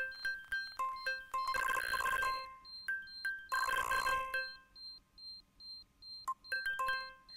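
Background music: a quick, plinking melody of short bell-like notes, like a ringtone, with two loud swells of hissing noise about two and four seconds in; the notes thin out near the end.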